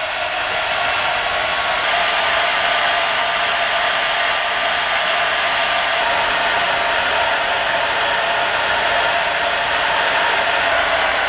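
Cheap handheld hair dryer running steadily, blowing into a moped fuel tank to dry it bone dry before the tank sealer goes in: a steady rush of air with a faint steady whine.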